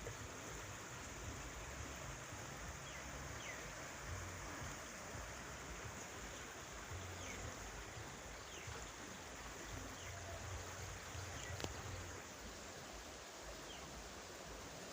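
Rainwater runoff flowing steadily as floodwater, a constant rushing wash of water.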